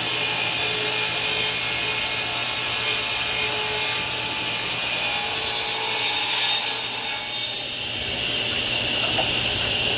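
Table saw cutting through a thick live-edge mulberry slab, fed slowly. About seven seconds in the sound drops and changes, and the saw keeps running.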